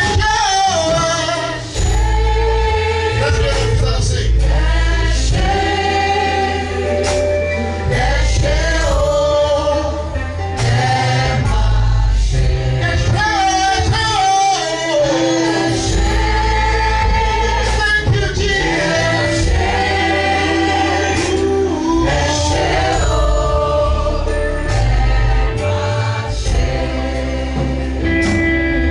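Gospel worship music: sung vocals with a choir over a band with strong bass and steady percussion.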